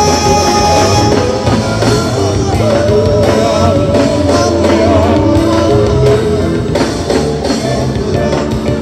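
Several voices singing a song together into microphones, backed by a live band with a steady drum beat.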